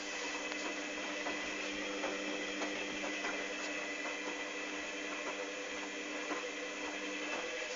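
Hoover Dynamic DYN 8144 D washing machine's motor running with a steady whine as it turns the drum through a cotton wash, with scattered faint clicks and splashes from the wet towels tumbling.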